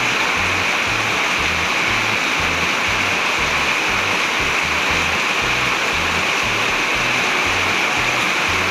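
Heavy rain pouring down in a steady, unbroken hiss, with a low pulsing beat of background music beneath it.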